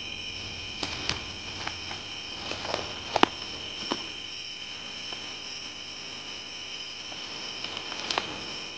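Steady chorus of crickets and other night insects, a constant high trilling. Scattered soft crunches and clicks sound over it, the sharpest about three seconds in.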